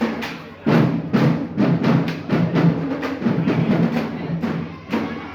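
Marching band drumline playing a cadence: a run of loud drum strikes, about two a second.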